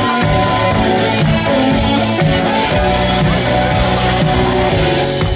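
Live band playing loud amplified music through a club PA, with keyboards and drums.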